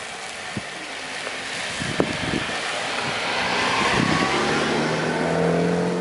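A car drives slowly through deep snow towards the listener. The hiss of its tyres and engine grows louder, and its steady engine hum becomes clear near the end. A single sharp knock comes about two seconds in.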